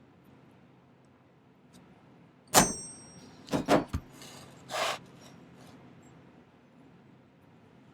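Hammer striking a texture stamp on sterling silver sheet: one sharp blow with a high metallic ring about a third of the way in, then a few lighter knocks and a short scrape.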